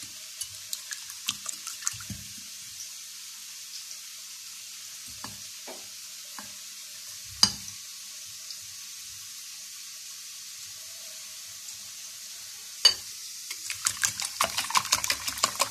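Potatoes sizzling steadily as they fry in oil, with scattered light clicks and two sharp knocks, about seven and thirteen seconds in. Near the end a wire whisk starts beating eggs in a glass bowl: a fast run of ticks against the glass.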